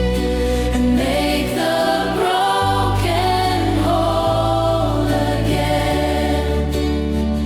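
Acoustic worship song playing, with voices singing over held bass chords that change every second or two.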